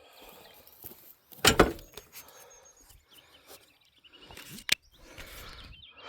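Cut wood being handled with the saw shut off: one loud thump about a second and a half in and a sharp knock later, with quieter shuffling between.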